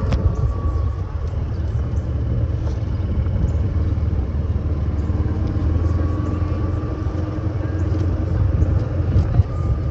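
Golf cart in motion: a steady low rumble, with a faint whine that comes and goes.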